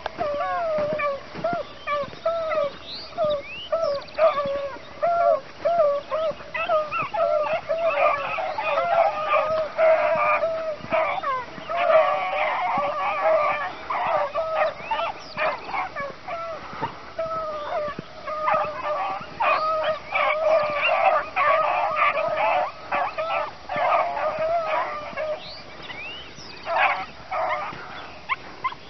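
A pack of beagles baying in chorus while running a rabbit on its scent trail: many overlapping, bending cries, scattered at first, thickest through the middle, then thinning to a last few near the end.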